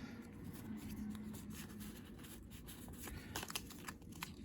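Faint rustling and small clicks of Pokémon trading cards being handled and slid past one another, with a flurry of clicks in the second half.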